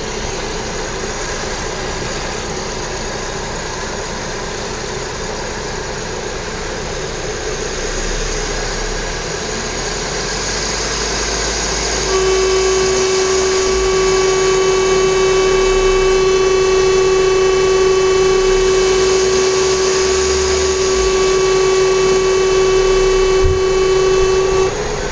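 VW Vento 1.6 petrol four-cylinder engine running in the open engine bay; it is brought up to higher revs and held there, and about halfway through a steady high whine joins the engine sound, cutting off abruptly just before the end as the revs drop back.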